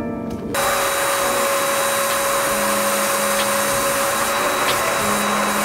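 HVLP paint sprayer running, spraying polyurethane: a steady hiss with a fixed whine that starts abruptly about half a second in.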